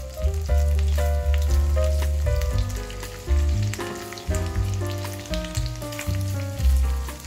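Bacon strips sizzling and crackling in melted butter in a frying pan, under background music with a melody and deep bass notes.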